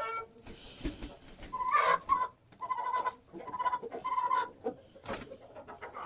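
Chicken clucking: a run of about five short, even calls from about one and a half to four and a half seconds in.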